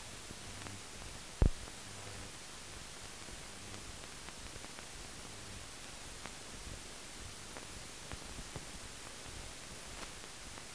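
Steady hiss on an otherwise empty soundtrack, with one sharp click about a second and a half in and a few faint ticks after it.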